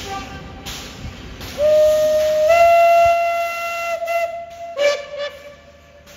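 Steam locomotive whistle: one long blast of about two and a half seconds starting about a second and a half in, its pitch stepping up slightly partway through, then a short second toot and a fading tail of the tone, as the locomotive pulls out.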